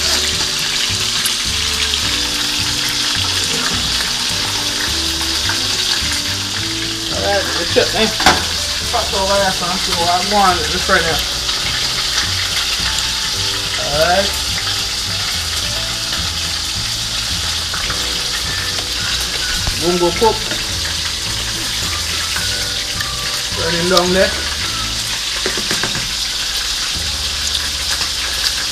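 Chicken pieces browning in oil in a frying pan, sizzling steadily. A few short wavering sounds rise above the sizzle, mostly around 8 to 11 seconds in and again near 14, 20 and 24 seconds.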